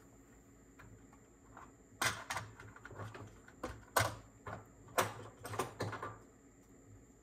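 Irregular clicks and knocks of small hard objects being handled or set down, about a dozen of them in the middle seconds.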